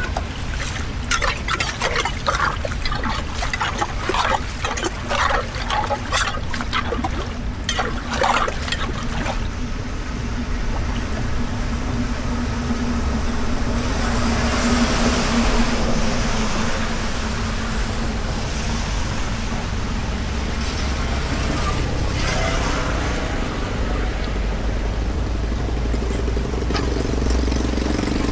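Floodwater pouring and splashing into a street drain over a steady low hum. A run of knocks and clatters fills roughly the first ten seconds.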